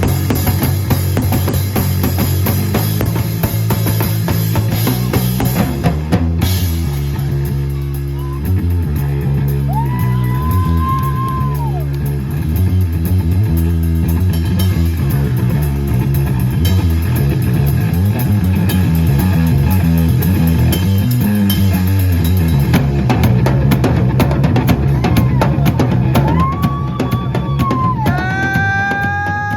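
Live rock band playing: drum kit and bass guitar drive a steady groove, with long held high notes bent up in pitch about a third of the way in and again near the end.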